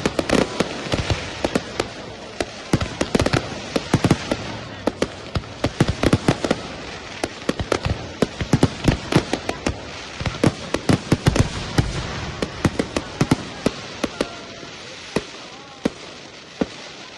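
Professional fireworks display: a rapid, dense barrage of shell bursts and crackling, many bangs a second, thinning out near the end.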